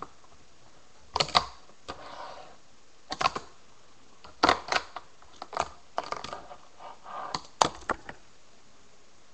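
Tech Deck fingerboard clacking against a hard plastic box lid and tabletop: sharp clacks, often in quick pairs, about every second, with short stretches of soft wheel rolling between them.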